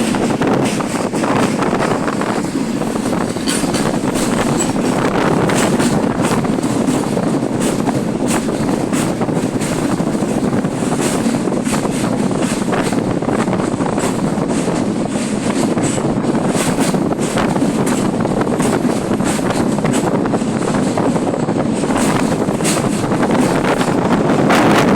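Passenger train running at speed: a steady rumble with scattered clicks from the wheels on the rails, and wind buffeting the microphone.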